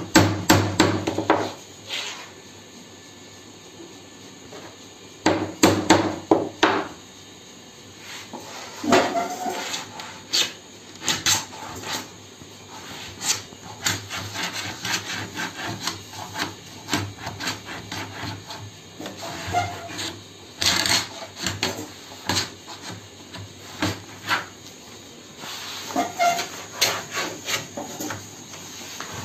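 Hand tools working a sheet of sunmica laminate: bursts of scraping and rubbing strokes with occasional sharp knocks, in irregular spells with quieter gaps between.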